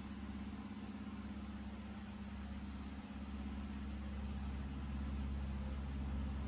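Steady low machine hum, a few level tones under a faint hiss, growing a little louder from about halfway through.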